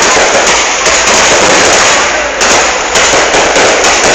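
Aerial fireworks going off in a loud, dense barrage of overlapping bangs and crackles with no pause.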